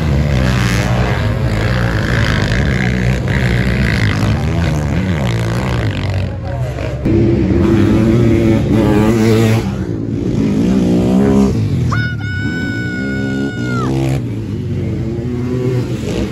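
Sidecarcross outfits' engines revving hard as they race past on the dirt track, the pitch rising and falling with the throttle. About twelve seconds in, a steady high-pitched tone sounds for about two seconds.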